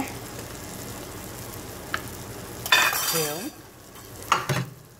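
Scrambled egg and cheese sizzling steadily in a frying pan. About three seconds in there is a brief falling tone, and near the end a couple of sharp knocks.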